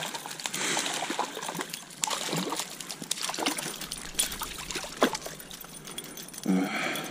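Water splashing and dribbling as a small hooked trout is taken by hand from shallow stream water, in short irregular splashes.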